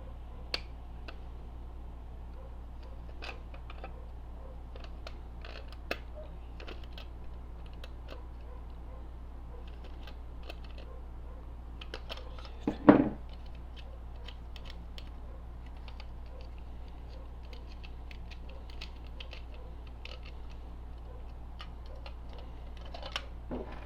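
Scattered small clicks and taps of metal parts being handled as the key lock is worked out of a Simplex fire alarm pull station, with one louder knock about 13 seconds in. A steady low hum runs underneath.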